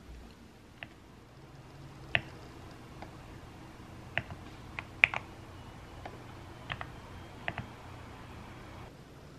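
Computer keyboard keys being pressed: a dozen or so sharp, irregular clicks, loudest about two seconds in and again about five seconds in, over a faint low hum.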